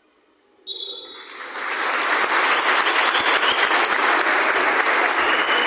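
Crowd of football spectators clapping and cheering, breaking out suddenly about a second in after near silence, with a brief high tone as it begins.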